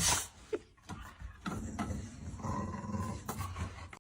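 A dog making a low, drawn-out vocal sound from about one and a half seconds in, after a short louder sound at the start.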